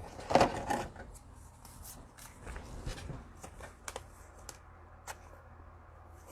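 Trading cards being handled and flipped through by hand, with a louder rustle about half a second in and scattered light clicks and taps after it.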